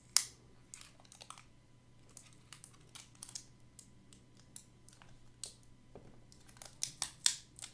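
Clear plastic packaging and tape being peeled and pried off a 6th-generation iPod Nano: scattered small plastic clicks and crackles, with a sharp click just after the start and a quick cluster of clicks near the end.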